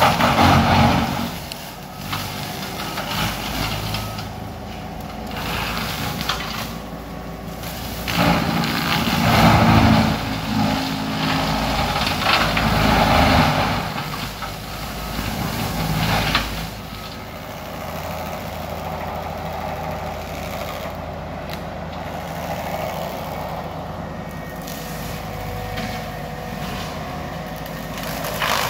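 A Cat compact track loader's diesel engine runs under load while its Alpha Wolf XP heavy-duty brush cutter spins and chews through brush. There are louder, rougher surges as the cutter bites in, near the start and again from about a third of the way in to roughly halfway. The last part is a steadier engine drone.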